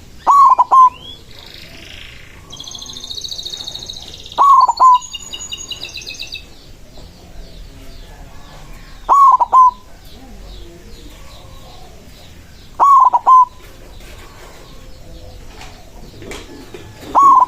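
White zebra dove (perkutut) cooing: a short, loud call phrase about every four seconds, five in all. Smaller birds chirp high in the background from about two to six seconds in.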